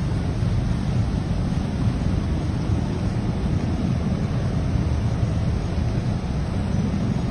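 Steady low rumble of wind buffeting the microphone from a vehicle moving along a flooded street, with an even hiss of water over it.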